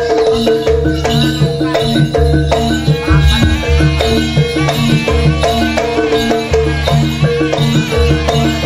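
Live Javanese gamelan music for a jaranan horse dance: many repeated struck, pitched notes over a steady deep pulse.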